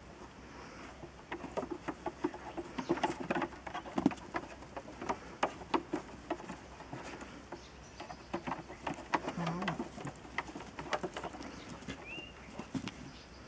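Goats' hooves clattering and knocking on a wooden table and a plank ramp: irregular runs of sharp taps and thumps as they climb and scramble. A short high chirp near the end.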